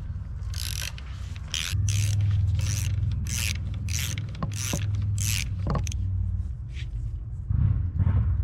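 A series of short rasping scrape strokes, one every half-second to second, over a low steady hum.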